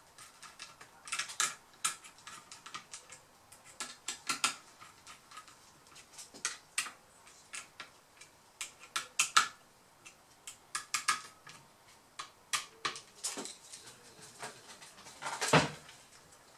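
Irregular small clicks and ticks of a precision screwdriver driving screws into a laptop's copper heatsink on the motherboard, with one louder knock near the end as the plastic cooling fan is handled.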